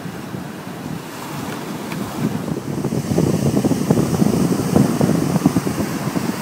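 Wind buffeting the microphone over surf breaking on the shore, the gusts growing louder about halfway through.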